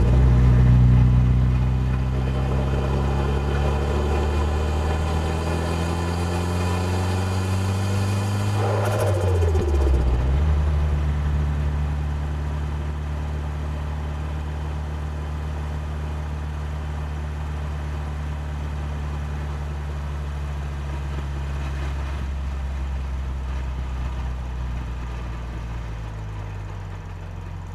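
Nissan Silvia S14a's turbocharged four-cylinder engine running at low revs. Its pitch falls sharply near the start and again about ten seconds in, then settles into a steady low drone.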